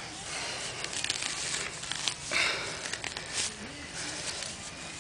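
Digging into lawn soil to recover a detector target: irregular crunching and tearing of dirt and grass roots, with scattered small clicks.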